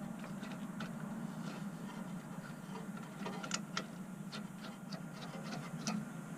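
Scattered light metallic clicks and taps as the parts of a brake-line flaring tool are handled and fitted together, over a steady low hum.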